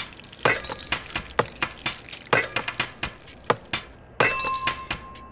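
Irregular sharp clicks and clinks of items being handled on a table, most likely the ice cream being set out. About four seconds in, a steady high-pitched tone comes in and holds to the end.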